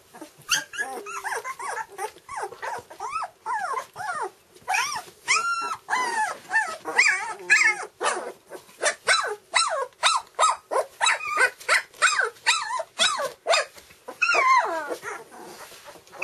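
Two-week-old standard poodle puppies calling over one another in many short, high cries that rise and fall in pitch, packed close together.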